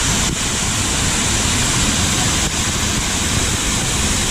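Waterfall with a steady rushing roar of falling water.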